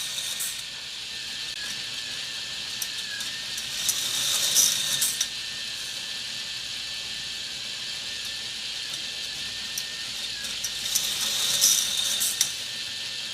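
K'nex roller coaster model running: its motorized lift clatters steadily like a ratchet, and twice, around four and eleven seconds in, a louder rush with clicks swells up as the cars roll fast along the plastic track.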